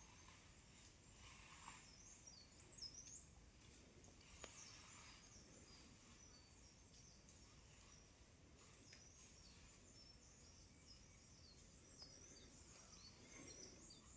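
Faint outdoor ambience with scattered high, quick chirps, bunched about three seconds in and again near the end.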